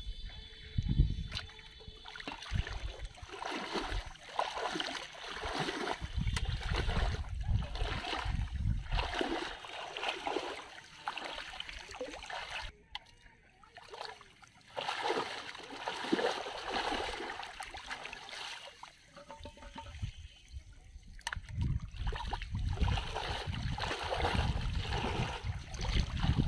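Shallow water sloshing and splashing in irregular bursts as a person wades through weedy floodwater and reaches into it.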